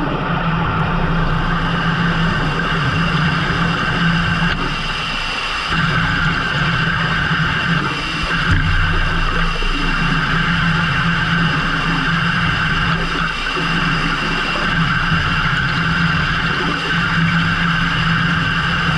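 Fishing boat's engine running steadily under load, with brief dips in its note about five and eight seconds in.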